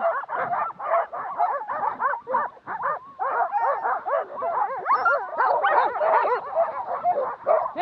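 A team of harnessed sled dogs barking and yelping, many at once, in a dense clamour of short high overlapping yelps.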